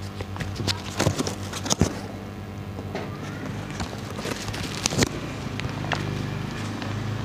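Cardboard packaging being pulled apart and handled: crackling and scraping with sharp knocks about a second in, just before two seconds and around five seconds. A steady low electrical hum runs underneath.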